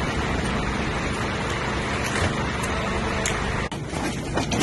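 A fire truck's engine running steadily with a low hum. Near the end the sound changes abruptly to scattered clicks and knocks.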